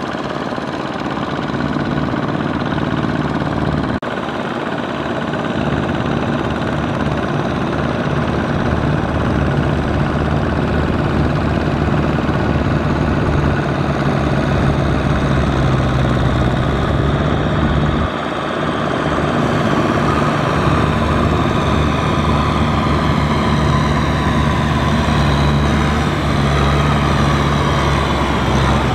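Diesel engines of Kubota M6040SU tractors running steadily under load as they pull cultivators through deep, flooded mud, with the level dropping abruptly twice.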